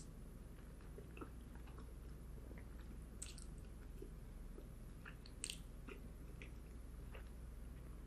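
Close-miked mouth sounds of a person chewing a mouthful of cheesy baked spaghetti: soft, wet smacks and small clicks, with the sharpest smack about five and a half seconds in.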